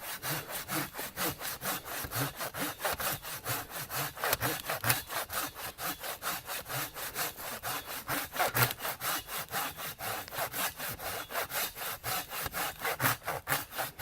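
Hand saw cutting through a tree trunk, with steady back-and-forth strokes at about three a second.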